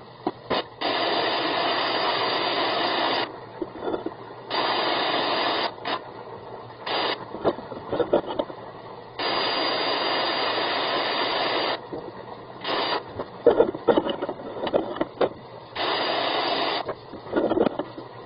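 Repeated bursts of radio-static-like hiss, each lasting from a moment to a few seconds, that switch on and off abruptly, with scattered knocks and rattles in the gaps between them.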